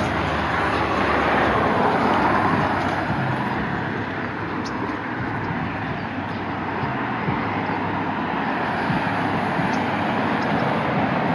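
Steady road traffic noise, cars passing on a nearby road, a little louder in the first few seconds.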